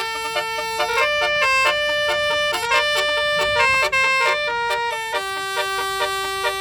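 A bus's 18-horn telolet horn set playing a tune: held horn notes step up and down, several sounding together, and settle on one long note about five seconds in.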